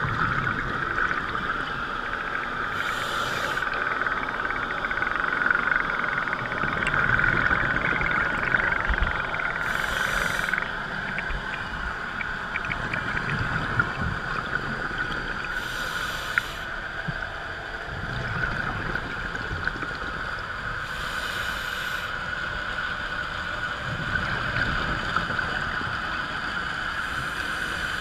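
Underwater sound inside a GoPro housing during a scuba dive: a steady hiss, with the diver's exhaled regulator bubbles burbling past in short bursts about every six seconds, five times.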